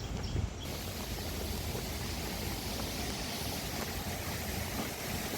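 Steady rush of flowing stream water, which fills out suddenly about half a second in.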